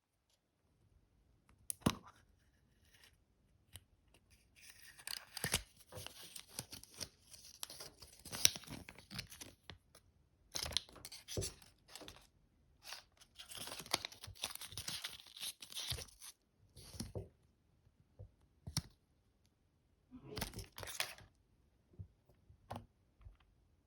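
Surprise-egg packaging being torn open and crinkled by hand in several bursts of rustling, with sharp clicks and taps between them.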